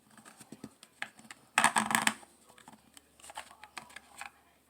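Plastic clicking and rattling of a cell-phone-style battery being worked into the battery compartment of a Prunus J-401 portable radio, with a dense flurry of clicks about one and a half seconds in and a lighter run of clicks near the end.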